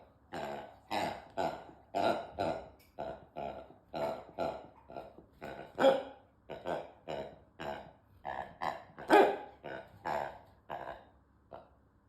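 A dog chomping on a rubber pig toy, squeezing out a quick irregular series of short grunting honks, about two a second, with a louder one about six seconds in and another about nine seconds in.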